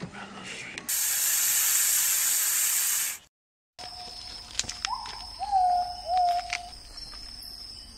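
A loud, steady hiss lasting about two seconds that cuts off sharply. After a brief gap come softer short whistled calls, each rising then falling, with scattered clicks and a thin high steady tone behind them.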